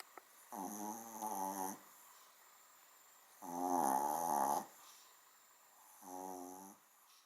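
Small dog snoring, as loud as a big dog: three snores a couple of seconds apart, each about a second long, the middle one the loudest.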